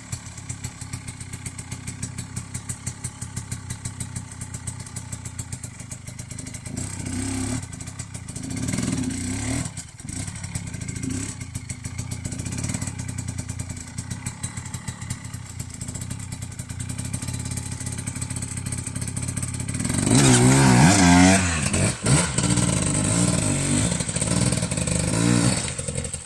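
KTM 250 enduro dirt bike engine running at low revs with a pulsing beat, revved briefly a couple of times in the middle. Near the end it is revved much harder, the pitch swinging up and down, then cuts back suddenly.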